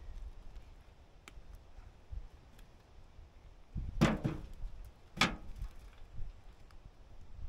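Two loud knocks, about a second apart, of chunks of firewood tossed into a wheelbarrow, each with a short ringing tail, over faint scattered clicks of wood being handled.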